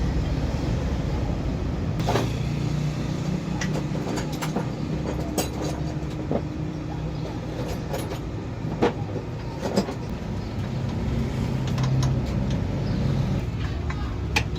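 A steady low motor hum, like an idling engine, with scattered sharp clicks and knocks of work on metal parts.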